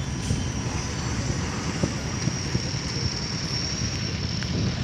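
Ferry's engines running with a steady low rumble and a faint steady high whine.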